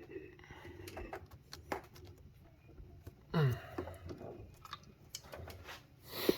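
Hands refitting an engine-bay hose connection and clamp: scattered clicks and taps, with a brief squeak about three and a half seconds in and a short hiss near the end.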